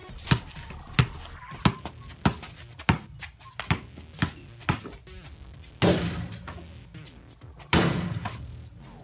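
Basketball dribbled on an asphalt driveway, bouncing about once every half-second, followed by two louder bangs, each trailing off over about a second.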